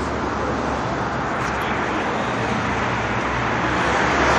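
Steady outdoor background noise, a low rumble with an even hiss over it, growing a little louder near the end.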